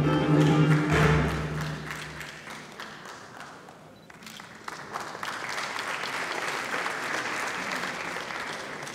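Audience applauding, with background music fading out over the first two seconds. The clapping grows louder about five seconds in.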